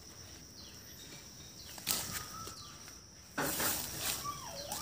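Quiet outdoor garden ambience with a steady high hum and a few faint bird chirps; about three and a half seconds in, leaves and stems start rustling as they are plucked by hand.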